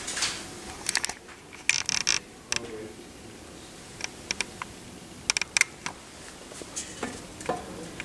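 Scattered sharp clicks and light knocks in small clusters, loudest about two seconds in and again about five and a half seconds in, over a faint steady background.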